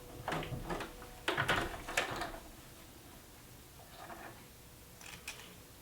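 A few brief clicks and rustles of handling at a Baby Lock sewing machine and the fabric under it, with most of them in the first two seconds and a couple of fainter ones later.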